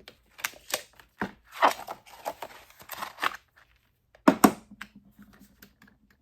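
Plastic window film crinkling and crackling as it is handled, in uneven bursts, with the loudest sharp crackles a little after four seconds in.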